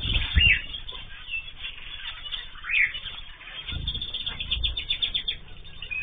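Small aviary finches chirping: a few short rising-and-falling chirps, then a quick run of calls about four seconds in. Wing flutter and low rumbles come from birds landing on and taking off from a hand as they feed.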